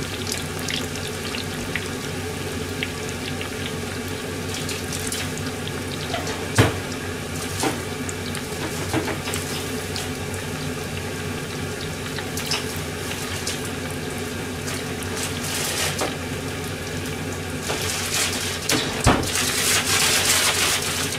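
Breaded cutlets deep-frying in hot oil in an iron pan: a steady sizzle and bubbling with scattered crackles and pops, growing louder and hissier in the last few seconds.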